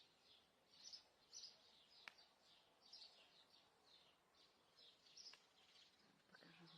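Faint chirping of small birds: many short, high calls in quick succession, with a single sharp click about two seconds in.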